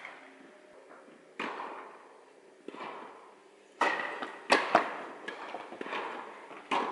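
A tennis rally: sharp racket strikes on the ball and ball bounces, each echoing through a large indoor hall, the loudest about four and a half seconds in.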